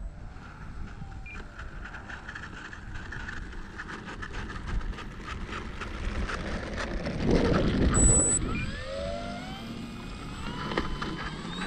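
Electric motor and propeller of an E-flite Cherokee RC plane whining and rising in pitch from about nine seconds in as the throttle is pushed up for a take-off. Wind noise on the microphone throughout, with a loud gust about seven to eight seconds in.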